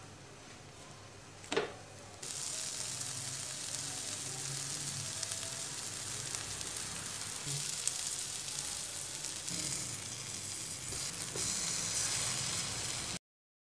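Garlic butter sizzling under bread slices toasting in a nonstick frying pan on a low flame, a steady hiss that starts about two seconds in and cuts off abruptly near the end. A single sharp knock comes just before the sizzling starts.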